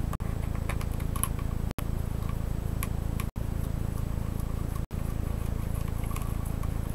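Faint, scattered light clicks and scrapes of a small hand screwdriver turning case screws into a laptop's plastic base, over a steady low hum. The sound cuts out briefly four times, about every second and a half.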